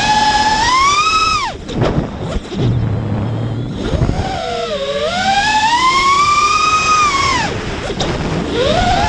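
FPV quadcopter's brushless motors (Emax 2306 2750kv) whining, the pitch rising and falling with the throttle. Twice the whine drops away sharply as the throttle is cut, then climbs back up, with wind rushing over the onboard microphone.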